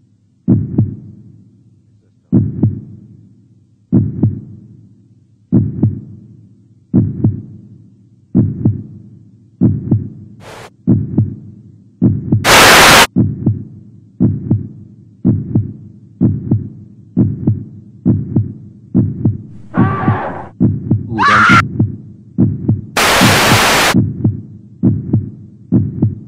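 Heartbeat sound effect: paired lub-dub thumps that speed up from about one every second and a half to more than one a second. Two loud bursts of rushing noise cut in, about halfway through and near the end.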